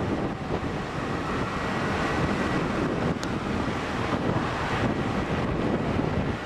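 Steady wind noise rushing over the microphone of a camera moving along with the cyclists, with one faint click about three seconds in.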